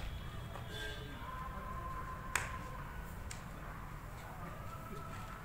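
A single sharp slap of a volleyball being struck by hand about two seconds in, followed by a fainter tap about a second later.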